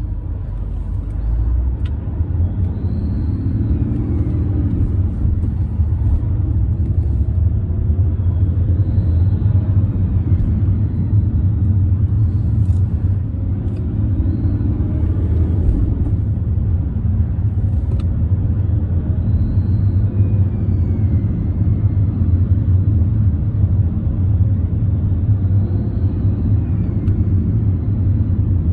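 BMW E46's M57 straight-six diesel running and being revved about every five to six seconds. A faint whistle rises and falls with each rev, which the owner puts down to a leaking exhaust manifold gasket near the turbo.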